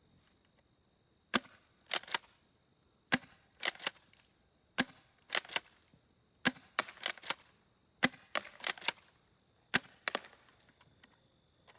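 Spring-powered pump-action airsoft shotgun being worked and fired with 0.20 g BBs: a series of sharp snaps and clicks in groups of two to four, about one group every second and a half.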